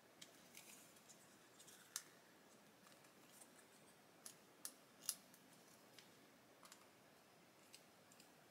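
Faint, scattered clicks and ticks of a small screwdriver turning tiny screws into the plastic trim of a model car seat backrest, the sharpest about two seconds and five seconds in; otherwise near silence.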